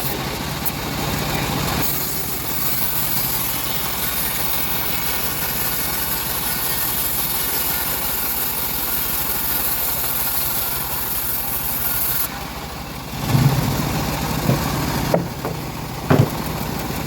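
Engine-driven homemade bandsaw mill running steadily while its blade saws through a teak log, with a high hiss over the engine hum. About twelve seconds in the hiss stops, and a few short knocks follow while the engine keeps running.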